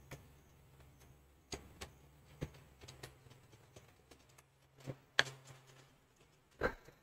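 Scattered sharp taps and clicks of a stylus on a pen tablet, about seven in all, the loudest two near the end, over a faint steady low hum.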